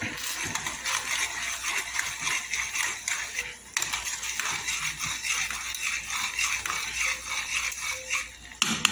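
A metal spoon stirring thick gravy in a metal saucepan, scraping continuously against the bottom and sides, with a brief pause about three and a half seconds in. There is a louder clatter of metal on the pan right at the end.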